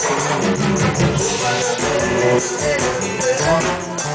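Live carnival band music with a steady percussive beat, bass and guitar, and some singing.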